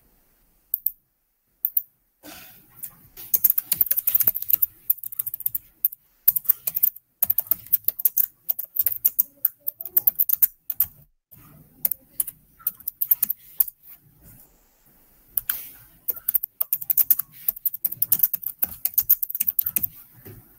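Typing on a computer keyboard: rapid runs of keystrokes starting about two seconds in, with a short pause about two-thirds of the way through.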